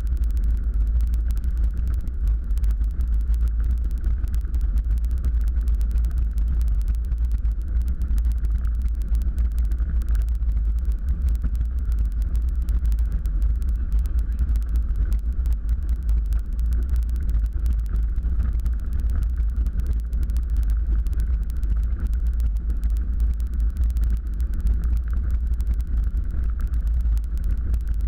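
Cozy Mk4's rear-mounted piston engine and pusher propeller running steadily, heard from inside the cockpit as the plane taxis on the ground: a constant, loud, deep rumble.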